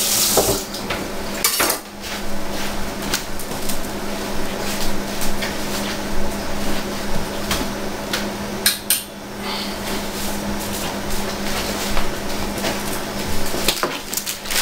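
Dishes and cutlery clattering as they are handled, in scattered knocks and clinks over a steady low hum.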